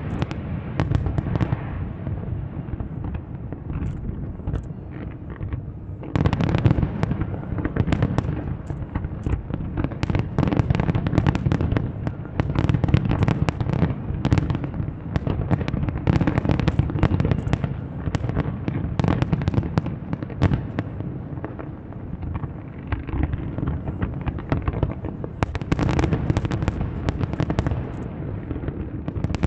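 Fireworks display: a continuous barrage of shell bursts and crackling, many sharp cracks a second. Heavier volleys set in about six seconds in and again near the end.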